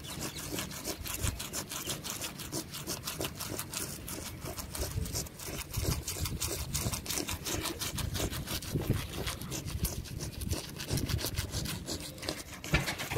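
Toothbrush scrubbing a Doberman's teeth and gums: quick, steady back-and-forth bristle strokes through foamy paste.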